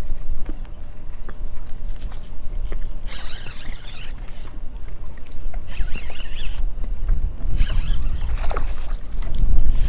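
Steady wind buffeting the microphone, with three short higher-pitched whirring bursts about three, six and eight seconds in.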